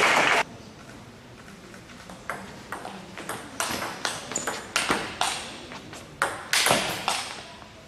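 Table tennis rally: the ball clicks sharply off the bats and the table in a quick back-and-forth, with a short ring after each hit. The hits start a little over two seconds in, after a brief loud burst of noise cuts off about half a second in.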